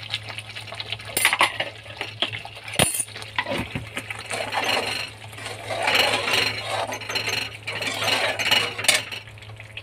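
A steel spatula stirring and scraping a thick masala in a steel kadhai, with repeated metal-on-metal clinks and a denser stretch of scraping in the second half, over a steady low hum.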